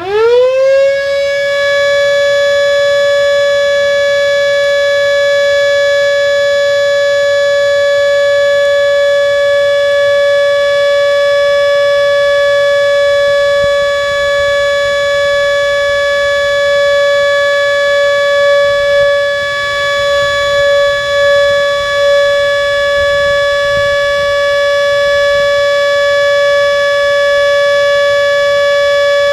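Miniature Model 2 warning siren winding up quickly from a standstill to full pitch, then sounding one steady, unbroken tone: the steady alert signal of its monthly three-minute test. The pitch wavers slightly for a couple of seconds past the middle.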